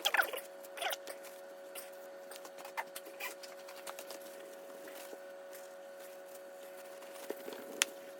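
Paper towel rustling and scratching as excess JB Weld epoxy is wiped off a fridge handle, with scattered light clicks and a sharp click near the end, over a steady faint hum.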